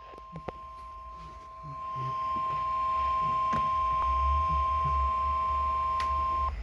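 NOAA Weather Radio warning alarm tone: a steady high tone of about 1050 Hz, with a fainter lower tone beneath it, held for about six and a half seconds before it cuts off. It is the alert that comes before a severe thunderstorm warning. Under it is a low hum that gets louder about two seconds in.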